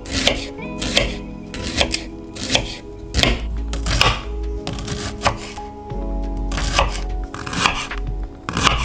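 Background music with held notes and a steady beat of sharp strikes about every 0.8 seconds.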